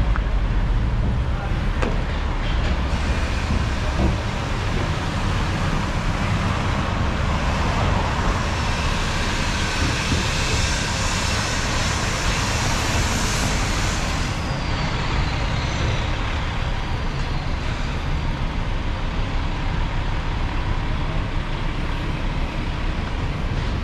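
Road traffic on a city street: a steady rumble of passing cars and trucks, with one vehicle's tyre hiss swelling as it passes close about halfway through, then fading.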